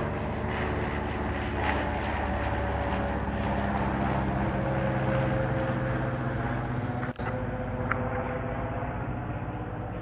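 Single-engine Cessna's piston engine and propeller running steadily, with a drone that drifts slightly lower in pitch over the first few seconds. The sound drops out briefly about seven seconds in.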